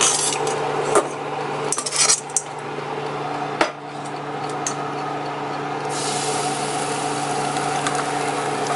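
Clicks and clatter as the preheated basket of a Bella 3.2-quart air fryer is pulled out and handled, over the steady hum of the running fryer. About six seconds in, sizzling starts as a seasoned chicken wing goes onto the hot basket, and it keeps on.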